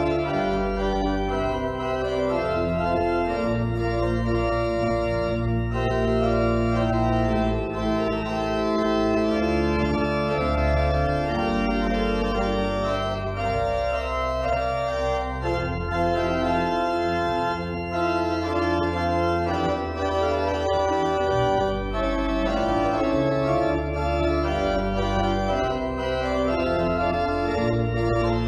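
Organ playing a postlude: full sustained chords over a low bass line, with the harmony changing every second or two.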